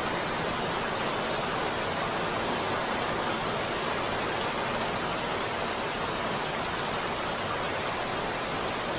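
Heavy rain falling steadily, an even hiss with no single drops, thunder or music standing out.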